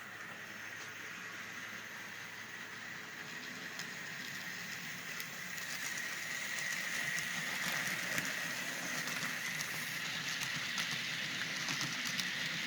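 Model train with passenger cars running along the track, a steady motor whir and rolling wheel noise that grows louder from about four seconds in, with light clicks from the wheels toward the end.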